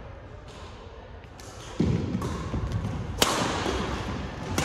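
Badminton rally: several sharp cracks of rackets striking the shuttlecock, the loudest about three seconds in, each echoing in a large hall. A heavy thud comes about two seconds in.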